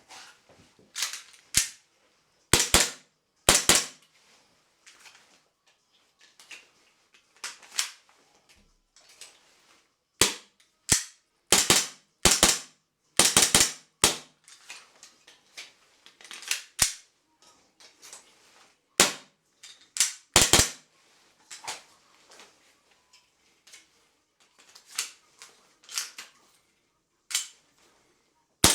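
Sharp plastic clicks and snaps, often in quick pairs, repeating irregularly every second or two: a Glock 17 magazine snapping into and being pulled out of a 3D-printed magazine pouch.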